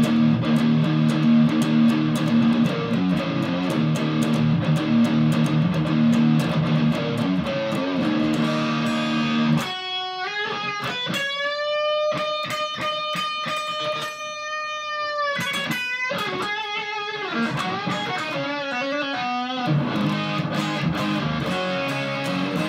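Electric guitar (an Epiphone Explorer) played through a Cascade Pedals Black Cat Overdrive with the gain turned all the way up, into a Fender Supersonic tube amp, giving a heavily distorted tone. It starts with about ten seconds of rhythmic distorted chords. Then comes a bent-up lead note held for several seconds, followed by quick lead licks with wide vibrato, and chords again near the end.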